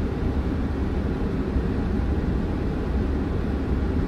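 Steady low rumble inside a transit vehicle's passenger cabin, with no changes or sudden sounds.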